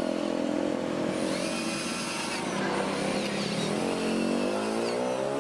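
Cordless drill running steadily with its bit in a seized screw in a chainsaw's engine casing, drilling the screw out; the motor's pitch sags under load partway through and climbs again near the end.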